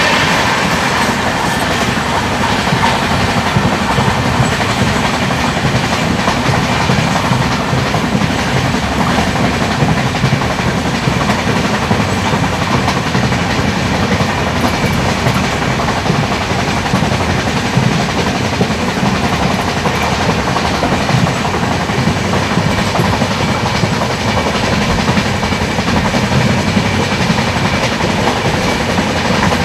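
Passenger train coach running at high speed, heard from its open doorway: a steady loud rush of wheels on the rails and wind.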